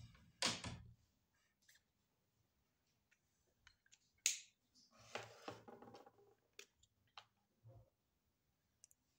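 Marker drawing a quick stroke across paper in the first second, then a single sharp click about four seconds in, followed by a brief rustle of handling and a few faint ticks.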